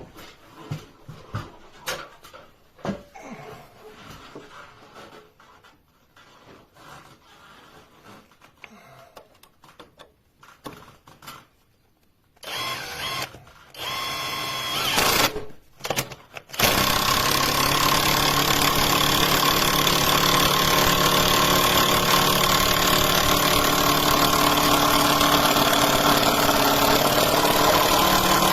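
Cordless impact wrench: first light clicks and knocks as it is handled, then about twelve seconds in the motor is triggered in a few short bursts, and from about sixteen seconds on it runs continuously and loud at a steady pitch.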